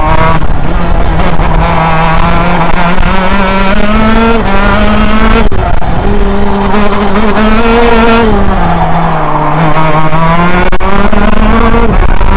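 A 125cc two-stroke gearbox racing kart's engine at racing speed, heard from on board the kart. The engine note keeps rising and falling: it climbs for the first few seconds, breaks briefly about five and a half seconds in, drops lower about eight seconds in while the kart goes into a corner, then climbs again near the end.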